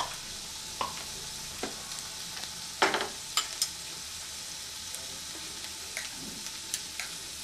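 Sliced chicken sizzling in melted butter in a nonstick pan: a steady hiss with a few light clicks and taps, the loudest about three seconds in.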